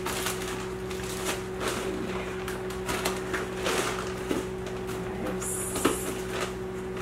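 Plastic freezer bags crinkling and rustling as frozen chicken breasts are handled and dropped into them, with light knocks, and a sharper crinkle about five and a half seconds in. A steady electrical hum runs underneath from the microwave oven heating cream cheese and butter.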